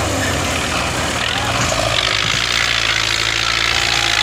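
Belarus MTZ-510 tractor's diesel engine running steadily as it pulls a loaded sugarcane trolley.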